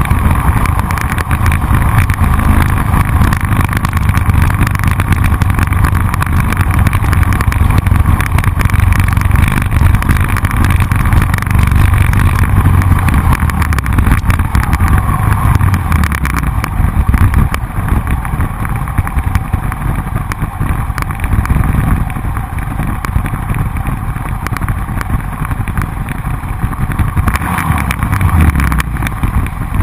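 Motorcycle engine running at road speed under heavy wind rush on the handlebar-mounted camera's microphone. The engine note and the wind ease off in the second half as the bike slows behind the bunched-up group.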